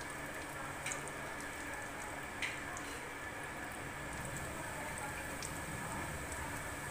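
Flour-coated chicken pieces deep-frying in cooking oil at medium heat: a steady sizzle with a couple of sharp spatter pops in the first few seconds.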